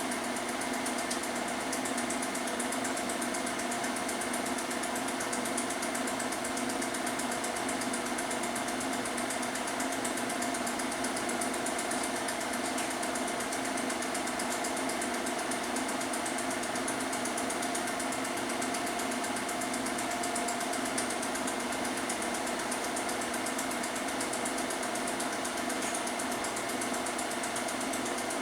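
Film projector running steadily: an even mechanical whir with a constant hum and hiss.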